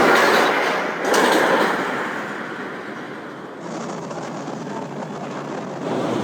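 Montezuma's Revenge, a flywheel-launched shuttle-loop roller coaster, launching. A loud rushing noise with two sharp knocks, at the start and about a second in, eases after a couple of seconds into a steadier rumble of the train running on the track.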